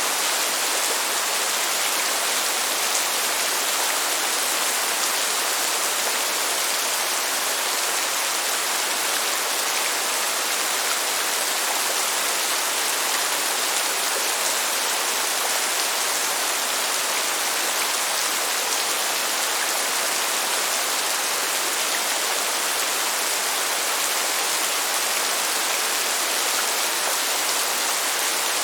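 Heavy downpour of rain pattering on surfaces, a steady, even hiss with no let-up.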